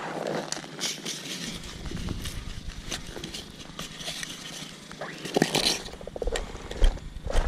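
Hatchet splitting kindling on a wooden chopping block: a series of sharp knocks as the blade hits the wood, with split pieces being handled. Near the end, footsteps crunch through snow.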